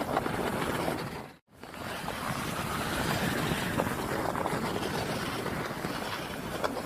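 Steady wind rushing and buffeting on the microphone outdoors, with a brief dropout about a second and a half in.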